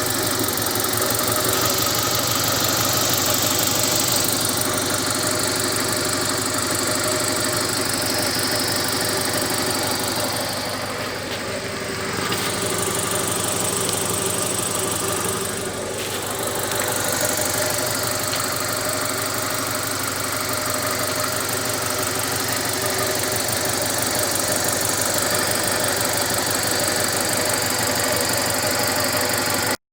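Mitsubishi Carisma GDI petrol direct-injection engine running steadily with a knocking clatter. The owner advises curing it with a change to 10W-40 engine oil. The sound dips briefly twice near the middle.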